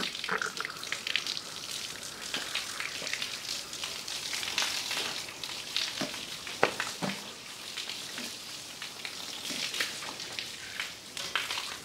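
Wet crackling and spattering as liquid is flushed into an Asian elephant's opened leg abscess and runs back out, a steady sizzle-like hiss with many small ticks.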